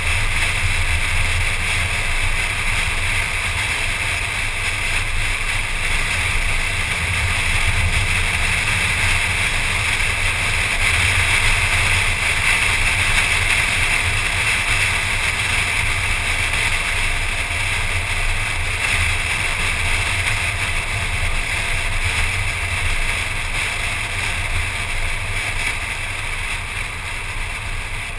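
Steady wind and road noise of a car cruising at speed, picked up by a camera mounted on the hood: a constant hiss over a low rumble, easing a little toward the end.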